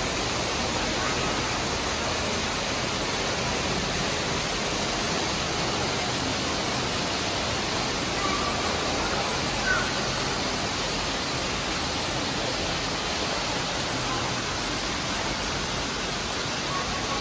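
Steady rush of water pouring underground, an even noise that does not change.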